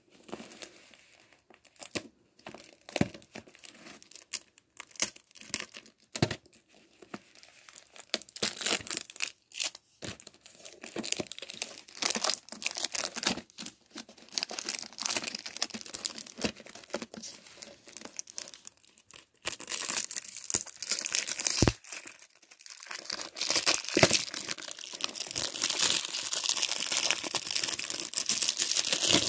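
Clear plastic shrink-wrap being torn and peeled off a VHS tape box, crinkling and crackling irregularly, becoming dense and continuous over the last ten seconds.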